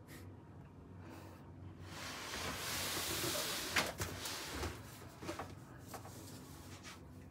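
Cardboard speaker carton handled and turned around: a soft scraping rustle of cardboard about two to four seconds in, then a few light knocks as the box is set down.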